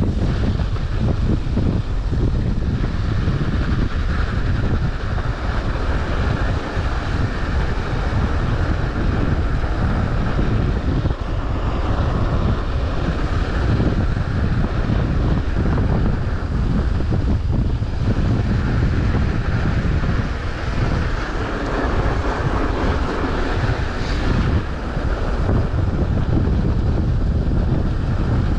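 Wind buffeting the microphone of a mountain bike rider on the move, a steady loud rumble and rush that masks everything else.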